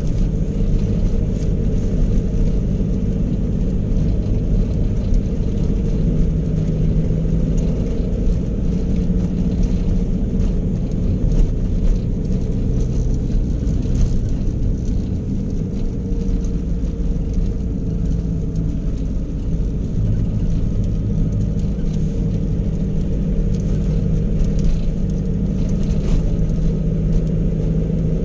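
Steady engine hum and road rumble of a vehicle driving, heard from inside the cab.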